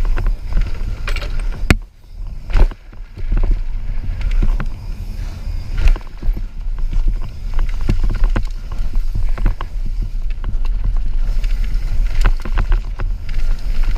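Mountain bike descending a bike-park trail: wind buffeting the camera microphone as a heavy low rumble, with the rattle, clatter and sharp knocks of the bike over rough ground. About two seconds in the noise briefly drops away, then a sharp knock returns it.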